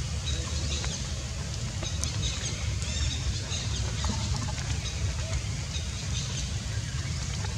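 Outdoor ambience: a steady low rumble with faint, scattered bird calls over it, a few of them clustered a couple of seconds in.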